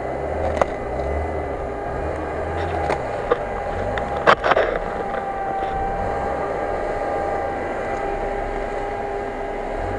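Lada Niva engine running at low, steady revs as the SUV crawls over a log, with a steady whine over the engine. A few sharp knocks and cracks come through, the loudest about four seconds in.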